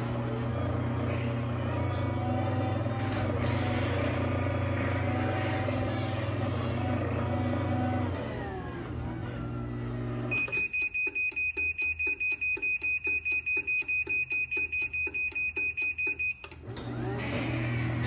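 Chamberlain B4613T belt-drive garage door opener running its limit-learning cycle. The motor hums steadily as it raises the door, then winds down and stops about eight seconds in. A rapid high electronic beeping, about five beeps a second, follows for some six seconds. Then the motor starts again to lower the door.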